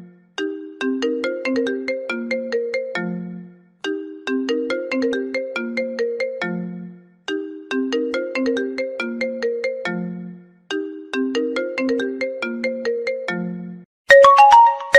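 A mobile phone ringtone: a short melody of quick notes stepping down to a low held note, played four times over with a short gap after each. Near the end a different, brighter and higher ringtone begins.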